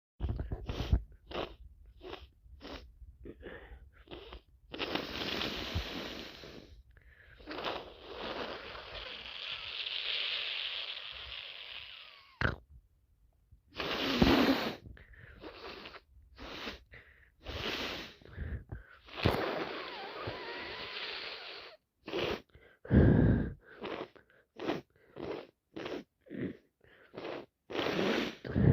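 A person with a heavy, wet head cold sniffing over and over in short bursts and blowing their nose hard into a tissue in three long blows.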